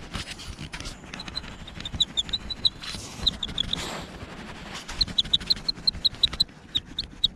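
GoPro chest-strap mount squeaking as the camera is rocked back and forth: quick runs of short, high squeaks, about four or five a second, broken by a couple of seconds of rustling midway. The squeak comes from the camera holder having play in the mount, not from the bike.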